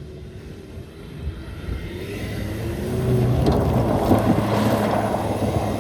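Ford Mustang EcoBoost's turbocharged four-cylinder engine running, growing louder through the clip as the car drives or accelerates.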